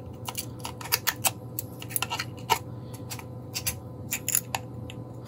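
A 3D-printed plastic mounting plate being handled, giving irregular sharp little clicks and ticks, over a faint steady hum.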